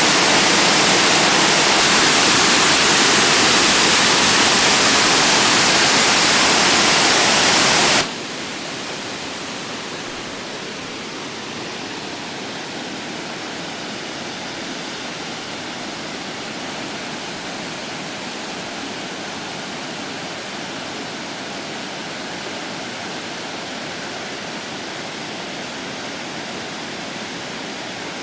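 Waterfall: a steady rush of water falling over travertine. It is loud for about eight seconds, then cuts suddenly to a quieter, duller steady rush.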